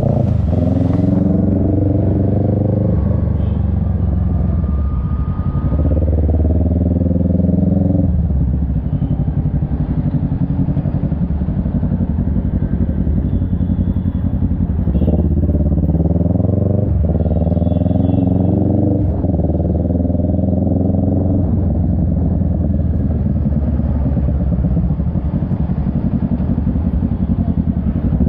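Kawasaki Ninja 650's parallel-twin engine running under way, its pitch climbing as it accelerates and dropping back several times as the rider eases off or shifts gear.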